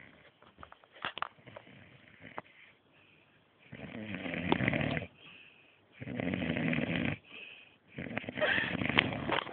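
Snoring: after a few quiet seconds, three loud snores come about two seconds apart.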